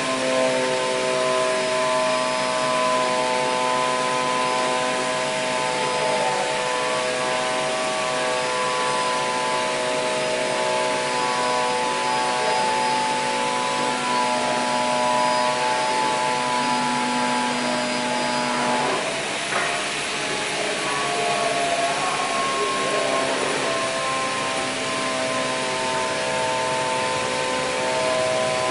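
Steady whir of running machinery: an airy hiss with several steady hum tones that drop in and out, and a brief scraping rub about two-thirds of the way through.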